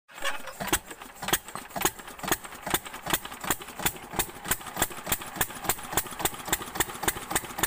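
Stationary diesel water-pump engine with two heavy flywheels, running with a loud, even knock on each firing stroke. The beat quickens from about two to about four a second as the engine picks up speed.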